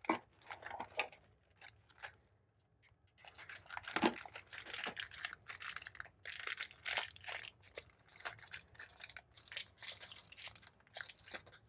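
Packaging crinkling and tearing in a long run of irregular rustles as a print head is unwrapped, starting about three seconds in after a few faint clicks.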